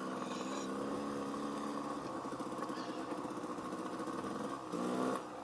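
Dirt bike engine running at low revs, with a brief louder rise near the end.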